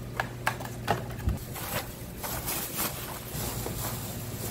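Pen-shell clams and a plastic basket being handled on a scale: a few sharp clacks of shell in the first second and a half, then a longer stretch of rattling and rustling.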